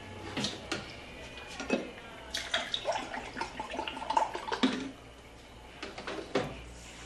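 A drink poured from a plastic jug into a glass, splashing for about two seconds in the middle, with clinks and knocks of the glass and jug against the refrigerator shelves before and after.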